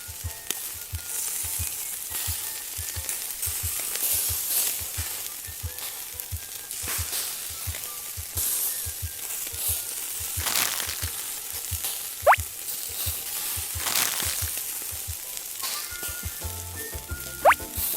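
Background music with a steady low beat under a continuous frying-like hiss, with two short rising whistles, one about two-thirds in and one near the end.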